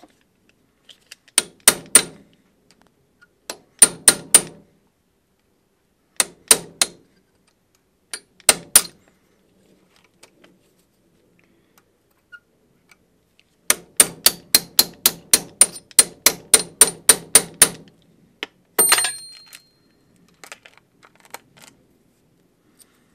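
Hammer striking a steel pin punch to drive the pin out of a roller chain link clamped in a bench vise. The taps are sharp and ringing: short groups of two or three, then a fast run of about sixteen at roughly four a second. A single metallic clink with a brief ring comes near the end.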